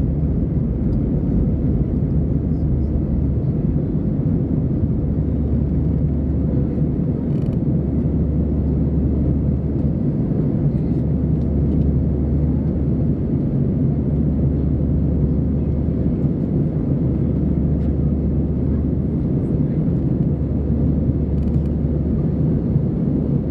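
Jet airliner cabin noise during the climb after takeoff: the steady, low, even rumble of the engines and airflow over the fuselage, with a constant deep hum underneath.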